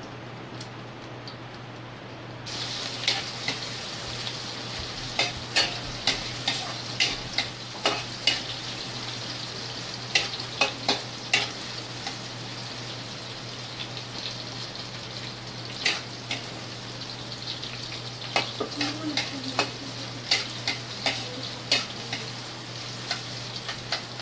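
Sliced onions dropped into hot oil in a wok start sizzling suddenly about two seconds in, then keep frying while a spatula stirs them, with frequent sharp clacks and scrapes of the spatula against the pan.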